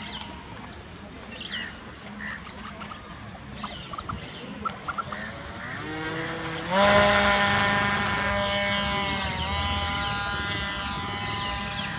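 Birds chirping, then about six seconds in the XK Edge A-430's brushless electric motor and propeller spin up in steps to a steady high-pitched whine, with a brief dip in pitch a few seconds later.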